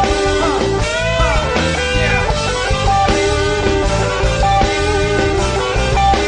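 Instrumental stretch of a rock-tinged song: a lead guitar playing bent, wavering notes over a steady bass line and drums, with no singing.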